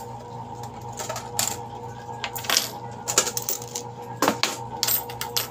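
Coins clinking and clattering as they are handled on a counter: irregular sharp clinks, loudest a little past the middle, over a steady electrical hum.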